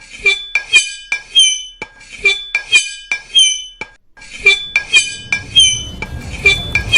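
Metal cutlery scraped and struck against glass in short, shrill squeaks and clinks, about three a second, with a brief pause a little past halfway.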